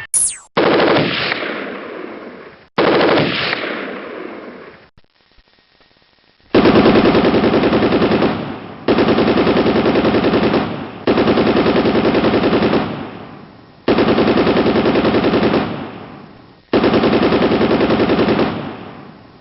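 Machine gun firing in about seven bursts of rapid shots, each about two seconds long, starting abruptly and fading away in a trailing echo. There is a pause of about a second and a half before the middle, then the bursts come back to back.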